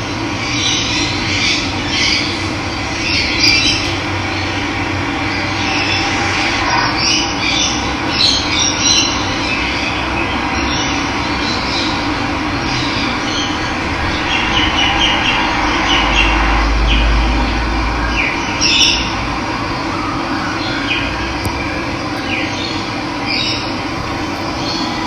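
Steady sound of running water, with wild birds chirping and calling over it in short, scattered high notes.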